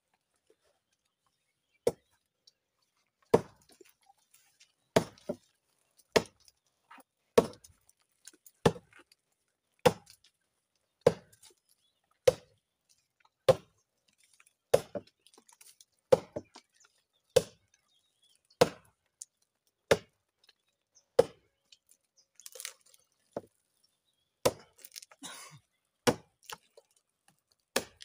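Axe chopping into a tree trunk: sharp, evenly paced blows about one every 1.2 seconds, starting about two seconds in, then a few less regular strokes near the end.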